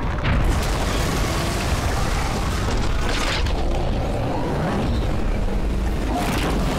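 Cartoon action sound effects: a continuous heavy rumble and booms, with a rushing whoosh about three seconds in and another near the end.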